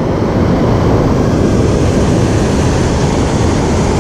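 Steady rushing noise of water pouring through a spillway, heavy in the low end.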